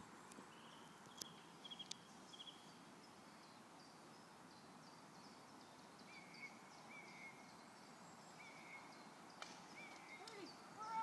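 Faint outdoor ambience with small birds chirping in the distance: short repeated high notes over a steady low hiss.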